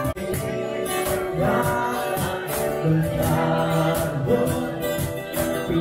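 A live band playing a song with a singer's voice over the instruments, filling the dining room. The sound drops out for an instant just after the start.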